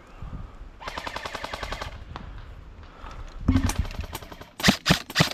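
Airsoft rifle firing: a fast burst of rapid shots about a second in, then a longer run of louder, slower shots from about four and a half seconds in.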